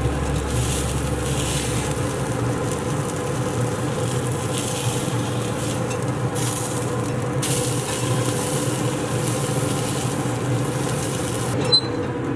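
Pork chops sizzling on hot grill grates during the sear, a steady hiss over a low steady hum. A click comes near the end, and the sizzle then drops away.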